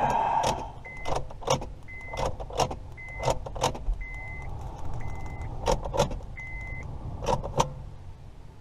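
A 2005 Honda Civic's electronic chime beeping steadily at one pitch, six times about a second apart, among sharp clicks and key jingles as the ignition key is worked in the lock while trying to program a remote.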